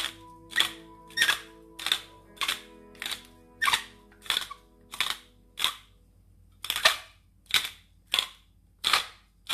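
Background music with held chords under a sharp, snapping beat, about three snaps every two seconds, that pauses briefly in the middle.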